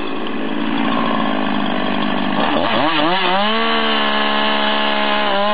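Two-stroke chainsaw running at high revs, at first rougher as if cutting through a log. About two and a half seconds in, the engine note dips and rises a few times with the throttle, then holds steady.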